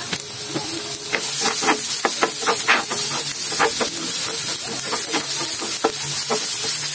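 Julienned zucchini sizzling with a steady hiss in a hot ridged grill pan. From about a second in, a spatula stirs it, scraping and clicking against the pan many times.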